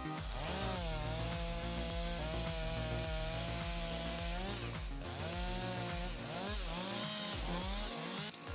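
Chainsaw cutting wood, its engine pitch dipping under load and rising again several times.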